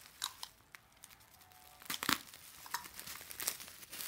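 Bubble wrap crinkling as hands work it open around a taped package. The crackles are scattered and sparse at first, then come thicker from about two seconds in.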